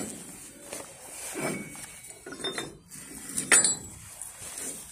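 Metal clinks and knocks from a locomotive's coupling being handled, a few separate strikes with the loudest, a ringing clink, about three and a half seconds in.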